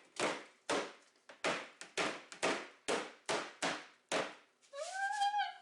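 Rapid, even knocking, about two and a half sharp knocks a second, like a container being banged to knock its contents loose. Near the end a woman lets out a drawn-out, rising 'ooh'.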